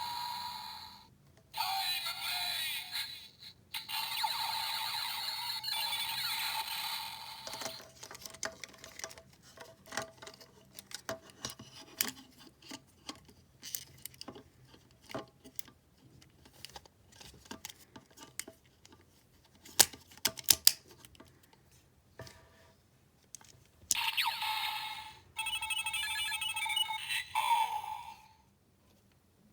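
Electronic sound effects from a Zi-O Ridewatch toy's small speaker, tinny and bright. In between comes a long run of sharp clicks and clacks from its plastic parts being handled and turned. The toy's sounds return near the end with a quick beeping pattern and a falling tone.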